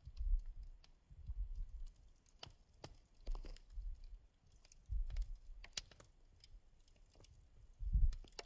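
Wood campfire crackling, with scattered sharp pops and snaps. A low rumble comes and goes beneath it and is loudest near the end.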